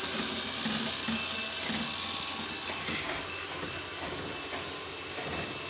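CraftBot 3D printer printing: its stepper motors whir in short notes that change pitch as the print head moves, over a steady fan hiss.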